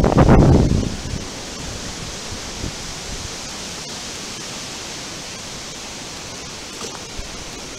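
Wind: a gust buffets the microphone with a low rumble for the first second, then a steady, even hiss of wind through the woodland.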